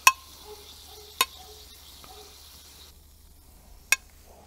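Shrimp and cherry tomatoes sizzling on a grill plancha, with three sharp metallic clicks of tongs against the plate. The sizzle stops about three seconds in.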